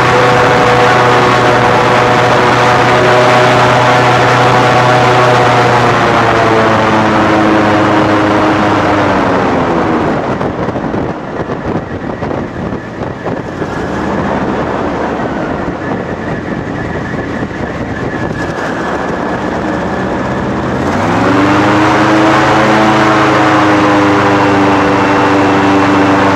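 Airboat's engine and propeller: the engine note slides down over the first several seconds as the throttle eases off, runs quieter and lower for about ten seconds, then revs back up sharply about two-thirds of the way through.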